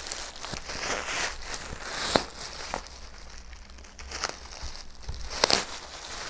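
Crinkling and rustling of a black plastic mailer bag being handled and pulled open, with a few sharper crackles, the loudest about two seconds in and another just after five seconds.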